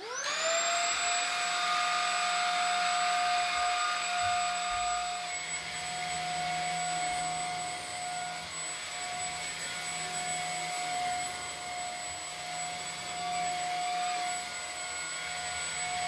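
Maircle S3-Mate cordless vacuum switching on, its motor whine rising over about a second, then running steadily with a rush of suction as it vacuums bits of paper and hair off a fabric sofa.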